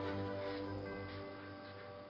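Background music of sustained, held notes, fading out.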